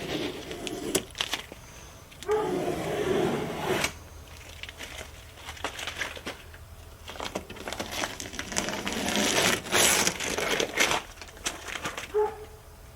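Masking tape being peeled off freshly top-coated car paintwork and crumpled, in irregular bursts of tearing and crinkling with sharp crackles.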